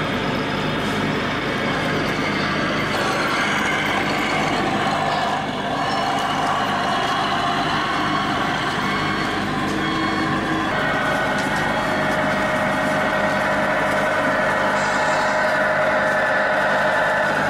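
Simulated truck diesel-engine sound from 1/14-scale radio-controlled trucks, running steadily. The engine note changes about eleven seconds in.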